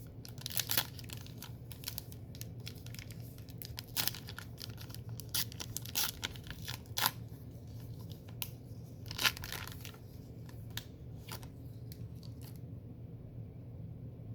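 Trading card pack wrapper crinkling and tearing, with cards rustling as they are handled, over a low steady hum. The crackling stops about twelve seconds in.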